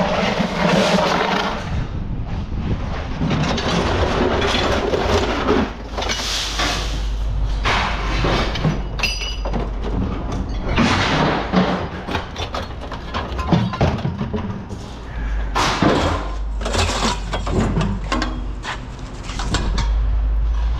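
Pieces of scrap metal being dumped and tossed onto a pile, clanking and clattering in irregular impacts, with one piece ringing briefly about nine seconds in. A steady low rumble runs underneath and grows stronger near the end.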